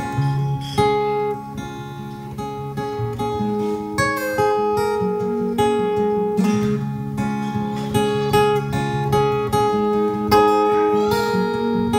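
Acoustic guitar being played: strummed chords with notes ringing on between the strokes.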